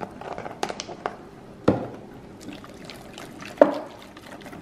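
Silicone whisk beating wet flour-and-almond-milk batter in a glass mixing bowl: wet sloshing and slapping with small clicks, and two louder knocks about one and a half and three and a half seconds in.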